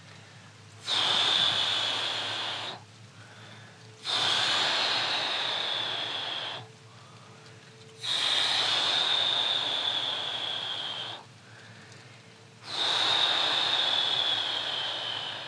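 An elderly man's heavy, noisy breathing close to the microphone: four long breaths, about one every four seconds, each with a high whistling wheeze.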